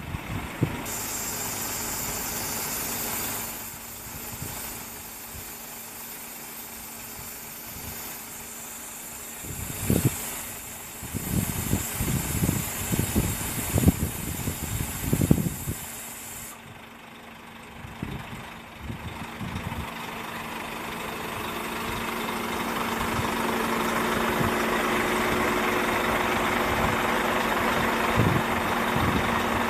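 Bobcat S175 skid-steer loader's diesel engine idling steadily, growing louder in the second half. A run of knocks and thumps comes in the middle.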